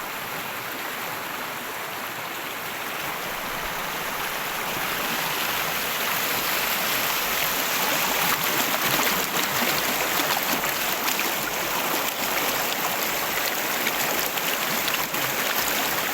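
Stream water running with a steady rushing noise, growing louder several seconds in.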